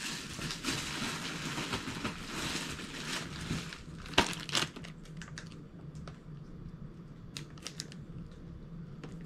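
Clear plastic packaging bag crinkling and rustling as it is handled, with a few sharp crackles about four seconds in and only occasional crinkles after that.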